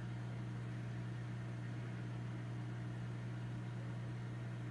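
Steady low electric hum with a faint hiss, unchanging, typical of a running aquarium pump or filter motor.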